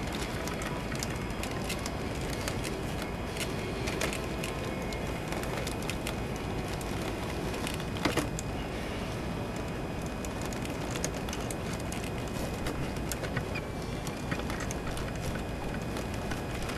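Hands untwisting wire twist ties and handling a plastic action figure in its cardboard packaging: scattered small clicks and rustles over a steady background hiss, with one sharper click about eight seconds in.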